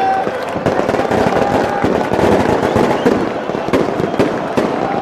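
Firecrackers going off in many rapid, irregular bangs over the din of a packed stadium crowd.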